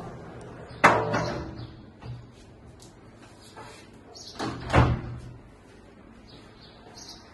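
Frameless 10 mm tempered-glass sliding panels being pushed along their track, each stopping with a loud clack against the next panel: once about a second in, and again near five seconds after a short rolling run.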